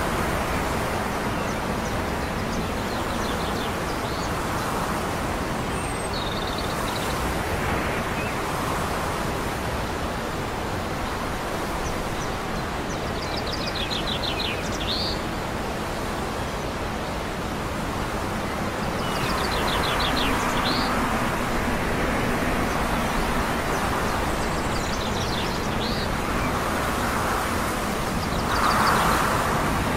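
Steady outdoor background noise, the hum of distant traffic and wind, with short high chirps of small birds every few seconds.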